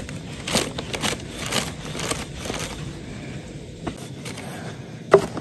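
Wooden rolling pin rolling flatbread dough on a wooden board: short scraping strokes about twice a second, easing off after about three seconds, with a sharp knock near the end.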